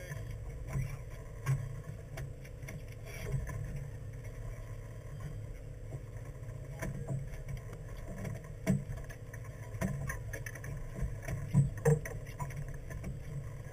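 Steady low hum of a fishing boat's idling engine, with scattered knocks and thumps on the deck; the loudest come about two thirds of the way in and near the end.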